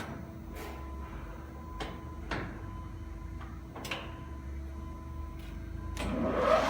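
TRAK TRL-1440P toolroom lathe being shifted into a higher speed range: five or six sharp clicks and clunks from the gear levers over a steady machine hum. Near the end the spindle spins up with a rising whine.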